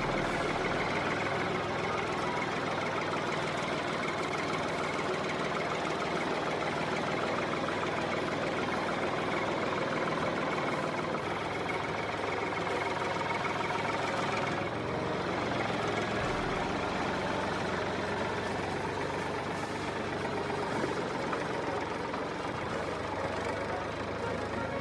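Steady heavy-vehicle engine sound running at idle, unchanging in level, with a faint click about every two seconds.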